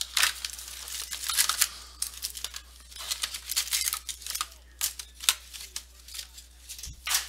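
Foil wrappers of trading-card packs being torn open and crinkled, a run of irregular short rips and crackles as the cards are pulled out.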